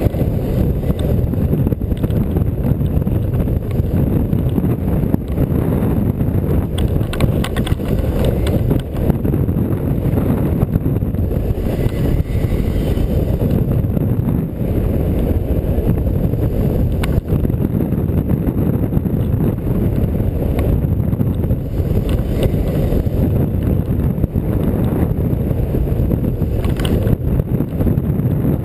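Wind rushing over the microphone of a camera mounted on a hang glider in flight: a loud, steady, buffeting rumble, with a few faint ticks.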